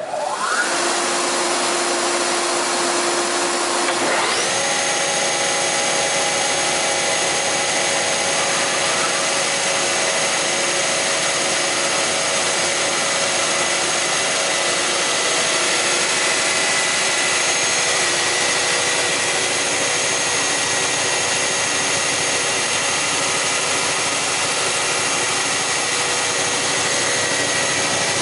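Weinig Quattromat 23P four-sided planer being switched on. Its motors start suddenly with a rising whine, a second motor spins up about four seconds in, and then the machine runs steadily with a high, even whine.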